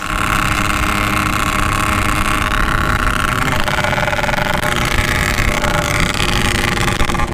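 Yamaha RX-King 135cc two-stroke single, fitted with a Packing Power standard-style exhaust, running steadily at speed while being ridden. Its pitch holds fairly level, with a slight shift about halfway through.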